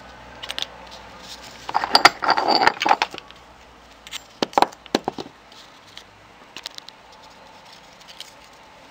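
Clattering and rattling of objects being handled on a workbench, followed a couple of seconds later by a few sharp knocks as a heavy block is set down to weigh down the laptop's DC charging-jack wires, then light scattered ticks.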